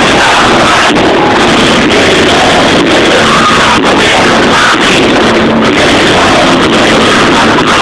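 Loud, densely mixed music.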